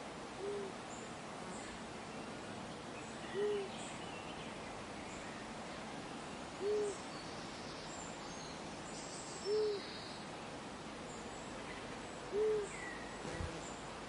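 An owl hooting: five short, single low hoots, about one every three seconds, over a steady hiss of running water. A small bird chirps faintly near the end.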